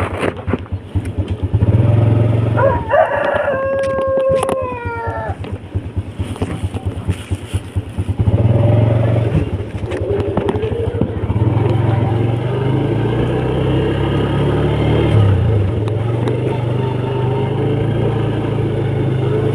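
Small motorcycle engine running under way, its firing pulses audible early on and then a steady hum as it picks up. About three seconds in, a rooster crows once, a held call that falls in pitch at the end.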